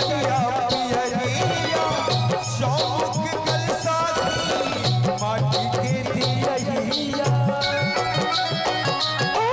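Instrumental interlude of a Bhojpuri Chhath folk song: a wavering melody line over a steady hand-drum beat and rattling percussion.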